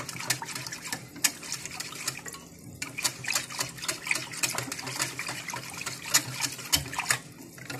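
Wire hand whisk beating thin tahini sauce (tahini, water and vinegar) in a glass bowl: quick liquid sloshing with frequent sharp clicks as the wires strike the glass.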